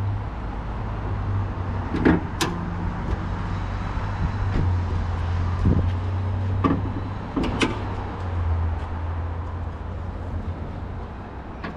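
Hood latch of a 2009 Nissan Sentra being released and the hood raised: a string of sharp clicks and clunks, the loudest about two seconds in, over a steady low hum.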